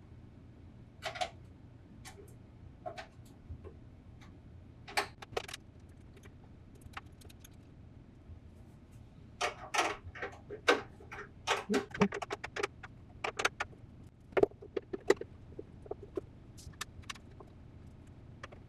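Irregular metallic clinks and clanks of hand tools and the engine's sheet-metal cooling tin being handled. A few come singly early on, then dense clusters of clatter follow in the second half.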